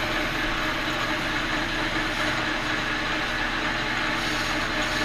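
Victor engine lathe running steadily, its spindle and gearing giving an even hum with several steady tones, while a boring bar cuts inside a spinning bronze bushing, facing the bottom of the bore.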